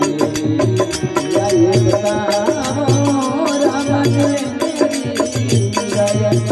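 Rajasthani folk bhajan music: a wavering melody carried over a steady hand-drum beat with regular high jingling percussion.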